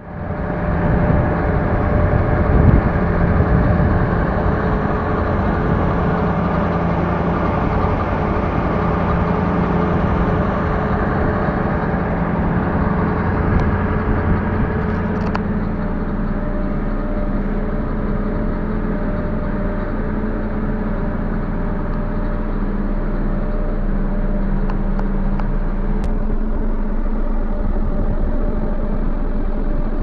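Fortschritt E-516B combine harvester running under work: its diesel engine and threshing machinery give a loud, steady drone with a constant hum. About halfway through, the sound turns deeper and duller.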